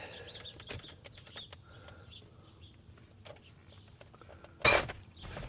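Faint clicks and scrapes of needle-nose pliers working at the hinge pin of a truck's plastic center console lid, then one sudden loud clack near the end as the pin comes free.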